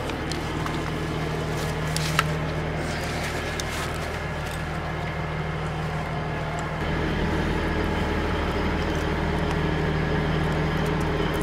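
A vehicle engine idling, a steady low drone, growing a little louder about seven seconds in, with a few light clicks around two seconds in.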